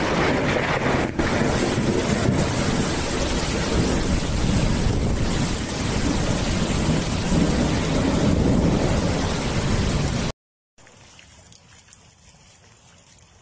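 Torrential rain pouring down, a loud, even hiss. It cuts off abruptly about ten seconds in, leaving only faint background noise.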